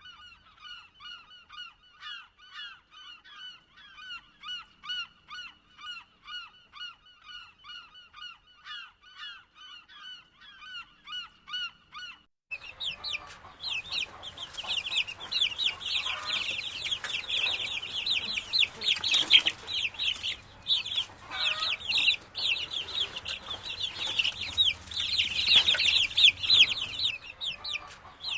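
A single bird calling over and over, about two short calls a second. About twelve seconds in, a cut to a much louder flock of birds calling over one another.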